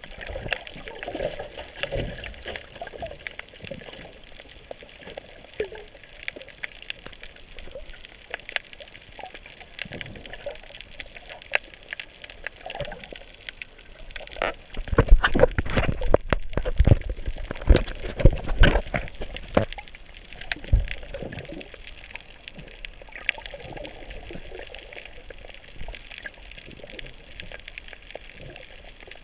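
Water heard from a camera underwater: a steady watery wash with scattered pops and bubbles. About halfway through it turns louder for a few seconds, with dense splashing and knocks.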